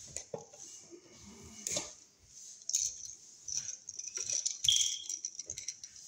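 Small clicks and metallic rattles of hand work on a wall receptacle: needle-nose pliers bending and hooking the copper circuit wires while the receptacle is handled, busiest about two-thirds of the way through.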